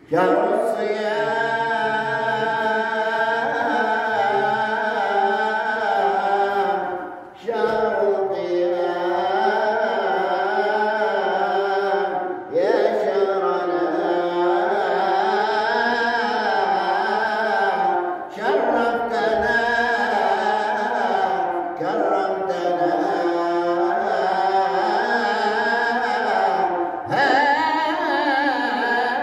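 A man singing a slow solo religious chant with long, ornamented, wavering held notes. He breaks off briefly to breathe four times.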